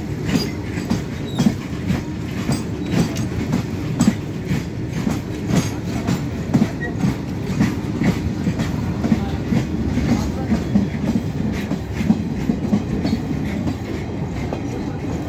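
Loaded Indian Railways BOXN open freight wagons rolling past at close range, their wheels knocking over the rail joints in a continuous clickety-clack over a low rumble. The knocks ease slightly near the end as the brake van at the tail goes by.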